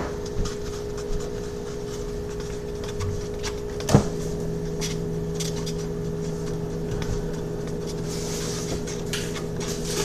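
Objects being handled, with one sharp knock about four seconds in and light clicks, over a steady hum. A short hiss comes near the end.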